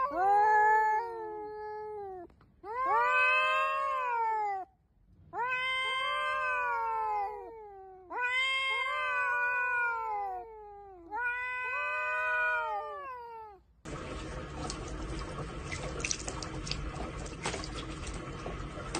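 A domestic cat yowling in five long, drawn-out calls, each rising then falling in pitch. About fourteen seconds in, the calls give way to the steady hiss of water running from a bathroom tap.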